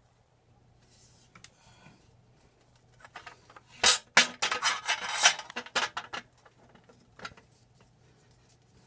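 Metal Akrapovic exhaust header pipes clinking and scraping against each other and the cylinder-head studs and flanges as they are pushed up into the exhaust ports by hand. The sharpest clinks and scraping come about four to six seconds in, with a few lighter clicks before and after, over a faint steady low hum.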